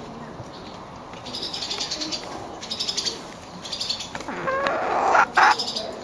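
Hen vocalizing: a few short, high, rapidly pulsed chirps, then about four seconds in a louder call rising in pitch that ends in a sharp, loud squawk.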